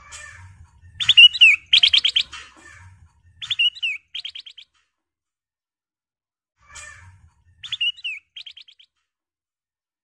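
Ruby-throated bulbul (kutilang emas) singing: three short phrases, each a slurred whistled note followed by a quick rattle of short notes, with a pause of about two seconds after the second phrase.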